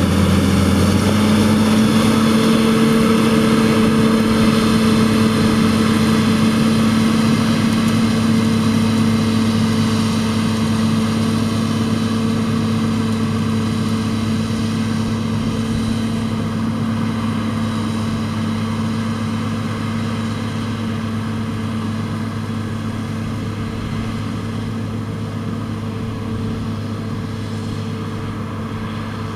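John Deere 7800 tractor's six-cylinder diesel engine running steadily under load while pulling a cultivator, with a slight rise in engine pitch about a second in. It fades slowly as the tractor moves away.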